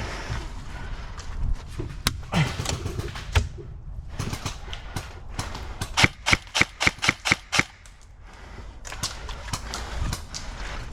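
Airsoft gun shots: a few single sharp cracks, then a run of about eight shots at roughly five a second, about six seconds in.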